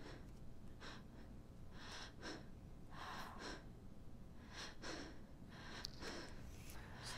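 A woman breathing hard and gasping in fear, faint quick breaths in and out coming about once a second, over a low steady rumble.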